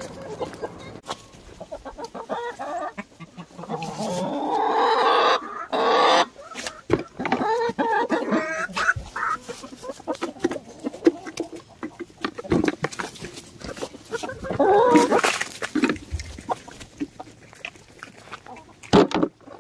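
A flock of chickens, hens and a rooster, clucking close up, with louder bursts of calls about five seconds in and again around fifteen seconds in. Many short clicks and rustles run under the calls.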